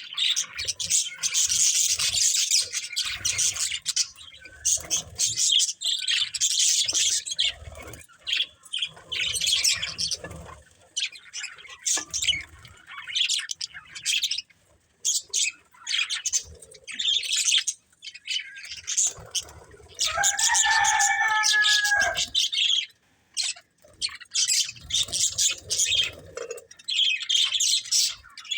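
Budgerigars chirping and chattering in rapid high bursts with short pauses between, with one longer, clearer pitched call lasting about two seconds later on.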